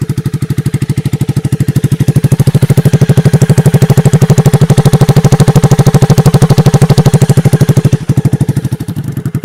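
Jawa 42's single-cylinder engine running on open free-flow bend pipes with the stock silencers removed, a loud, heavy exhaust note of evenly spaced pulses. The engine picks up and gets louder about two seconds in, holds there, then falls back to idle near the end.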